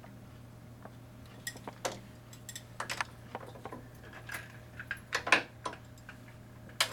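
Irregular small metallic clicks and clinks as the steel parts of a Falex lubricant tester are handled: the load arm is brought down over the freshly oiled test bearing. A steady low hum runs underneath.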